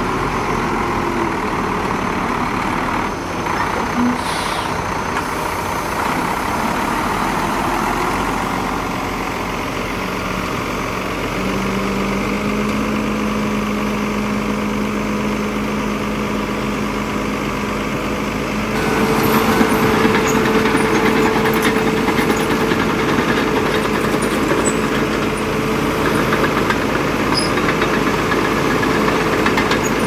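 Heavy diesel engine of earthmoving machinery running steadily, then revving higher and louder about two-thirds of the way through, with light clinks and rattles on top.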